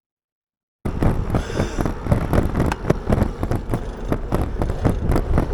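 BMX bike being ridden with an action camera clipped to the rider: wind buffeting the microphone over a running clatter of knocks and rattles from the bike. It starts abruptly just under a second in, after silence.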